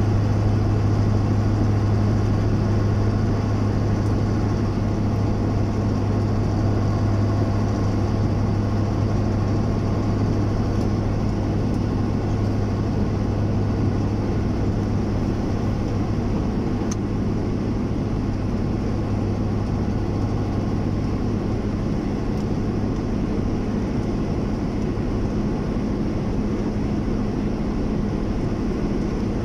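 A vehicle driving along at a steady speed: a constant low engine hum under an even wash of road and tyre noise.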